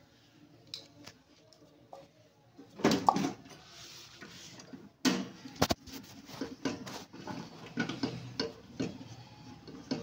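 Metal clinks and knocks from a microwave oven magnetron being handled and fitted by hand into the oven's sheet-metal chassis. There is a louder clatter about three seconds in, then scattered sharp clicks and taps.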